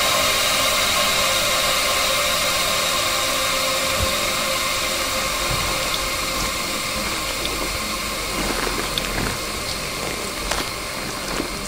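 Dense electronic noise drone with many held tones, slowly fading, with scattered small clicks and crackles in the second half.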